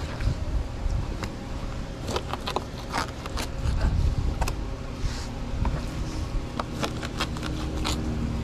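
Fillet knife slicing through raw sailfish loin on a fillet table: irregular scraping, crackly cuts and sharp clicks.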